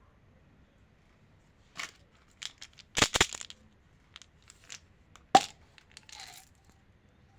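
Candy packaging being handled and torn open: scattered crinkles and sharp plastic cracks, with a cluster about three seconds in and the loudest single crack a little after five seconds.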